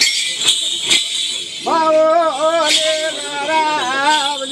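Bells jingling in a regular beat, about two strokes a second. A single voice comes in about a third of the way through and sings long, wavering held notes over them.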